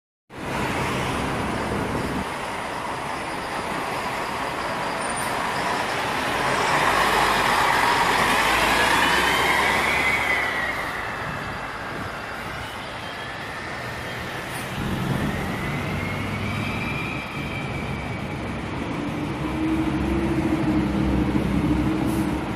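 Diesel bus engine running with a loud turbocharger whistle that rises and falls twice, once from about six to eleven seconds in and again more briefly around fifteen to eighteen seconds, as the bus pulls away and eases off.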